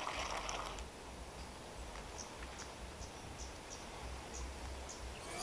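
Quiet rural outdoor ambience beside a pond: faint, short high-pitched chirps, roughly two a second for a few seconds, over a low rumble.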